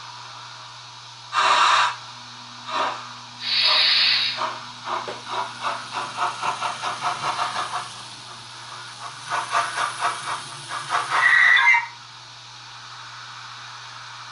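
Model steam locomotive sound decoder playing through a small loudspeaker. There are short bursts of steam hiss, then rhythmic chuffing at about four beats a second in two runs, and a louder hiss near the end, all over a steady low hum.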